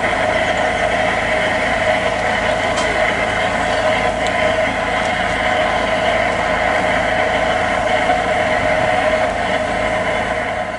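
A train running steadily, a loud even mix of sustained tones and noise that cuts off suddenly near the end.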